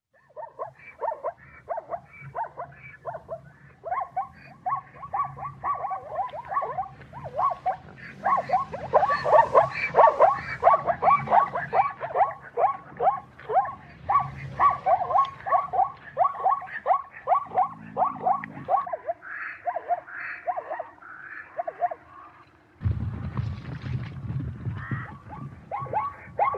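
Plains zebra barking: a long run of short, yappy yips, about three to four a second, that breaks off briefly about three-quarters through and starts again near the end.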